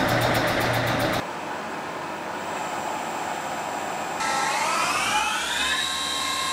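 CNC machining centre spindle spinning up on its warm-up routine: a whine that climbs in pitch in steps from about four seconds in, as the spindle speed is raised and held. A louder rushing noise cuts off just after a second in.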